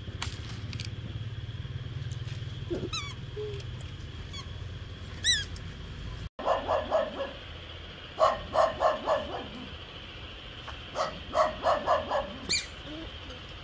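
A dog barking in quick runs of several barks, three runs in the second half. Before that there is a low steady hum and two short high falling chirps.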